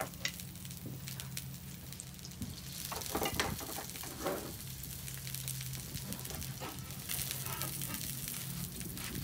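Salmon fillets frying skin-side down in oil in a skillet: a steady sizzling hiss as the skin crisps.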